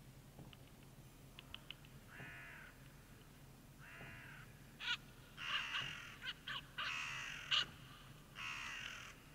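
A crow-family bird giving a series of harsh caws, the first two fainter and spaced out, then several louder calls close together in the second half.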